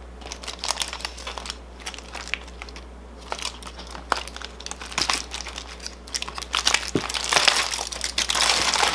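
Crumpled aluminium foil crinkling and crackling as hands peel it open, in short scattered crinkles at first, then louder and almost continuous in the last two seconds.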